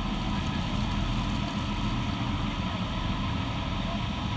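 Tour boat's engine running steadily under the constant rush of the waterfall and churning water.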